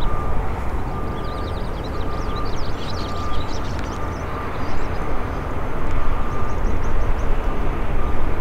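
De Havilland Canada Dash 8-400 turboprop landing: a steady rumble of its engines and propellers through touchdown and rollout, a little louder in the second half. Short high chirps come and go over it in the first half.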